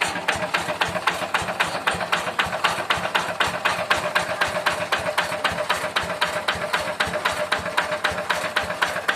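Yanmar Bromo Pro engine running steadily, with an even rapid knock of about seven beats a second over a steady hum.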